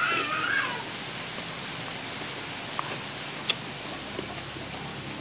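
Steady background hiss with a few faint, sharp clicks of chewing and lip-smacking while eating by hand; a brief voice trails off in the first second.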